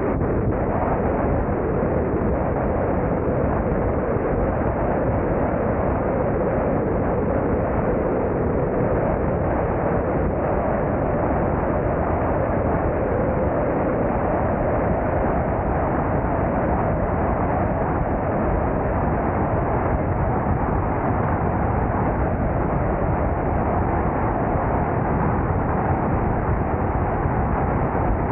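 Car driving at steady speed: continuous wind rush mixed with engine and road noise, with a droning note that drifts slowly higher.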